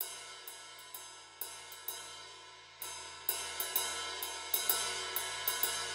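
A sampled ride cymbal loop playing on its own: a pattern of cymbal strikes, each ringing and fading, in an uneven rhythm of two to four hits a second.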